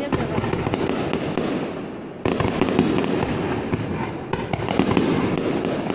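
Aerial fireworks display: a dense, continuous crackle of bursting shells with many sharp pops, growing suddenly louder about two seconds in.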